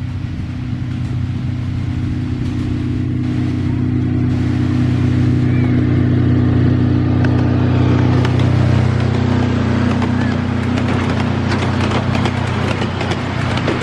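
Engine of a miniature-railway diesel-outline locomotive hauling a passenger train past, its steady hum growing louder as it comes close. In the second half, the clatter of the carriage wheels on the track takes over as the train runs by.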